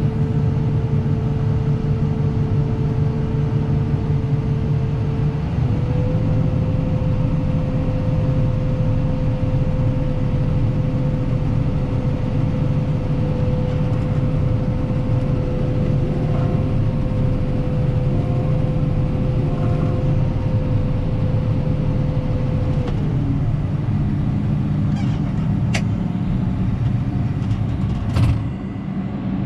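Combine harvester running under a steady low drone with a constant whine that steps up slightly about five seconds in and falls away about three-quarters of the way through. A few sharp clicks near the end.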